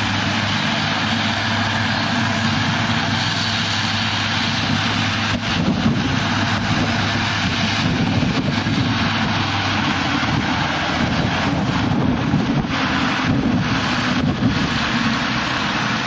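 A steady engine running, with a low hum that fades out about five seconds in, under a constant rushing noise of wind on the microphone.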